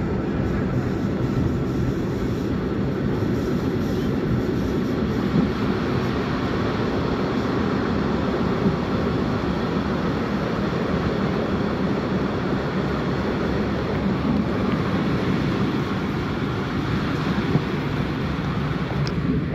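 Historic train of Centoporte carriages running along the track, heard from on board: a steady rumble of wheels on rails that holds at an even level throughout.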